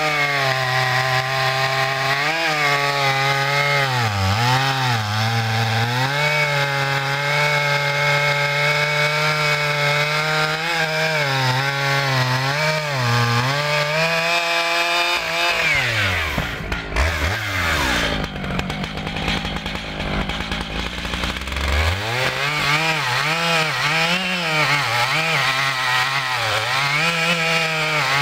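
A Stihl MS 881 Magnum, a big 121.6 cc two-stroke chainsaw being broken in, runs at high revs cutting through a large log, its pitch wavering as the chain bites. About halfway through, the revs fall away to a low rumble for several seconds, then climb back as it cuts again.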